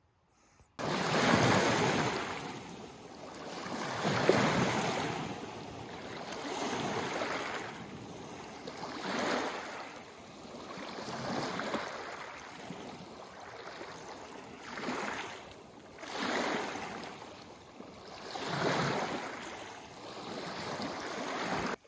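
Lake waves washing in one after another, swelling and falling back about every two seconds, on a rough, windy lake, with wind buffeting the microphone.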